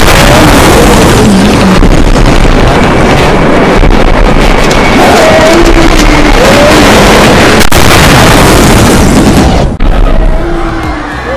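Loud, continuous cinematic rumble of horror sound effects over music, with brief wavering wails that rise and fall a few times. The rumble dips suddenly a little before the end.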